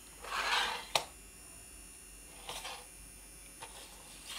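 Faint swishing and a few light clicks from a toy vacuum cleaner being pushed over the floor, with a faint steady high tone underneath.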